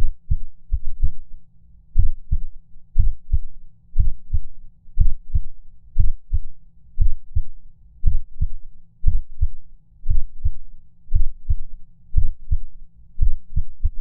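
Heartbeat, deep double thumps (lub-dub) about once a second with an uneven rhythm: a heart skipping beats.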